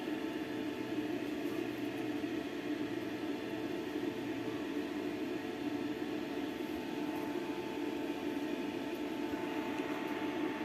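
A steady machine-like hum with a constant tone, unchanging throughout, with no knocks or clicks.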